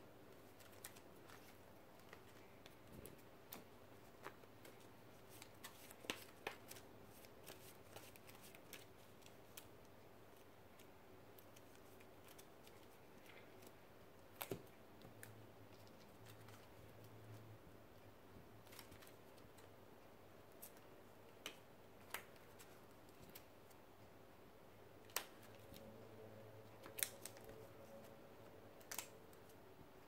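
Faint, irregular clicks and taps of plastic-sleeved trading cards being handled in the hand and set down on a wooden table, over quiet room noise.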